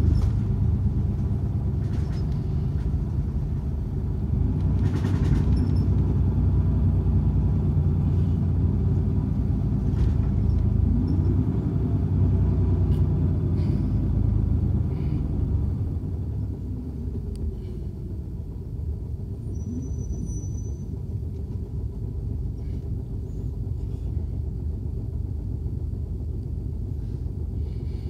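City bus engine and road noise heard from inside the cabin as the bus drives along: a steady low rumble, with the engine note rising briefly around eleven seconds in, then turning quieter about sixteen seconds in.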